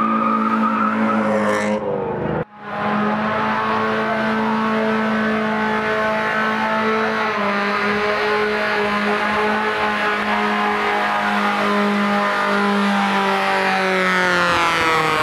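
BMW E36 sedan's engine held at steady high revs during a burnout, the rear tire spinning on the pavement. The revs fall away near the end, and the sound drops out for a moment about two and a half seconds in.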